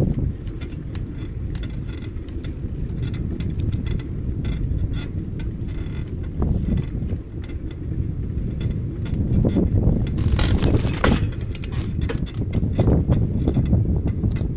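Wind rumbling on the microphone of a moving bicycle, with rattling and ticking from the bike throughout. A louder burst of rattling comes about ten seconds in, as the bike rolls over a speed hump.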